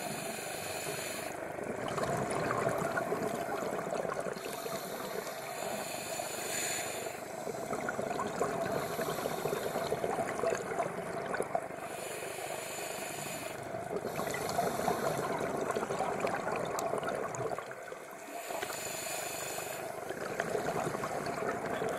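Scuba diver breathing through a regulator underwater: slow breaths repeating every four to five seconds, a hiss and then bubbling on each cycle, over a steady watery wash.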